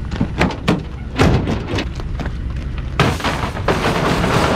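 Clicks and knocks of a Ford F-150 pickup's tailgate being unlatched and lowered, then, about three seconds in, a sudden sustained rattling scrape as a wire dog crate is slid across the plastic bed liner.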